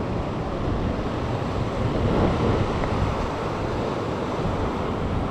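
Ocean surf washing against a sandstone rock ledge, with wind buffeting the microphone; a steady rushing noise without distinct strikes.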